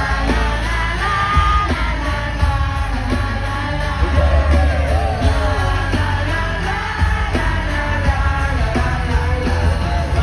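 Live K-pop concert music over the arena speakers, with a heavy bass line and sung vocals, and the audience yelling along.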